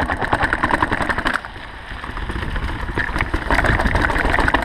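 Mountain bike descending a rough dirt trail: a continuous rattle and clatter of the bike over a low rumble. It eases for about two seconds in the middle, then grows louder again.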